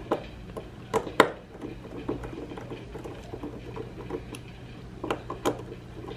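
Hex screwdriver driving small M3 screws into a metal pump top: scattered light clicks and ticks of the bit in the screw heads, with the sharpest two about a second in.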